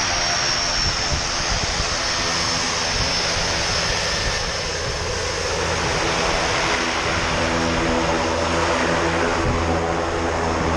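Single-engine high-wing jump plane running on the ground close by: a steady propeller and engine roar with a thin high whine above it that sags slightly in pitch over the first few seconds.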